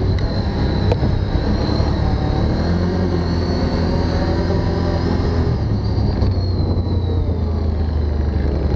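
Can-Am Outlander Max 1000 ATV's V-twin engine running steadily under way at around 20 mph.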